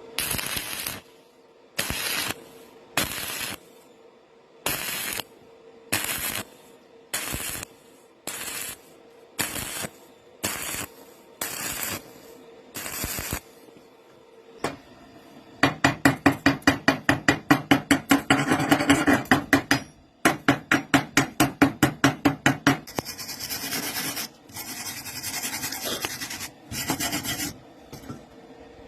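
A hand tool rasping against steel in separate strokes, about one a second. It then breaks into a fast run of short strokes, about eight a second, with a slight ring, and ends with a few longer strokes.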